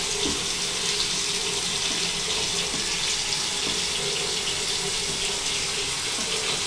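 Shower head spraying water, a steady rush of running water.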